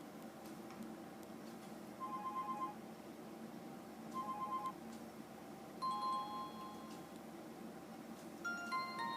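Electronic ringtones from an Alcatel A205G phone's small speaker: two short bursts of rapid beeping, a longer two-note beep about six seconds in, and a different chiming tune starting near the end.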